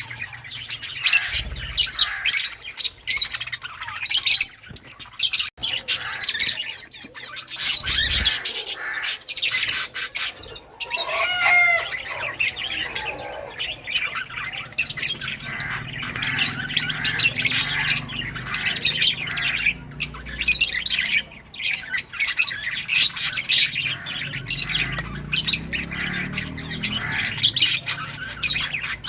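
A flock of lovebirds chattering: rapid, high-pitched chirps and squawks overlapping almost without pause, with one wavering whistle-like call about twelve seconds in.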